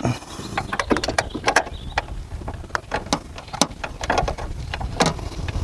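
Irregular clicks and knocks as a battery hold-down brace and its long bolts are handled and worked into place by hand.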